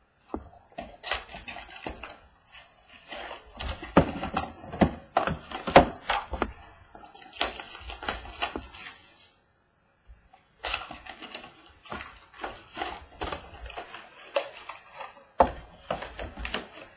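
A cardboard Bowman's Best trading-card box being opened and its wrapped card packs pulled out and set down on a wooden table: a busy run of clicks, taps and rustling, with a pause of about a second and a half midway.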